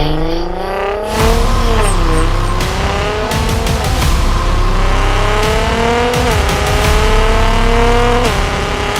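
Nissan GT-R R35's twin-turbo V6 accelerating hard through the gears. Its pitch climbs and then drops back at each upshift, several times about two seconds apart.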